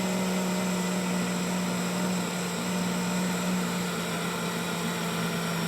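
Pressure washer running steadily, a constant hum with an even hiss over it.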